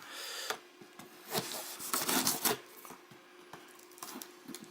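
A dull knife sawing and scraping through the packing tape and cardboard of a shipping box, in short uneven strokes with scattered clicks.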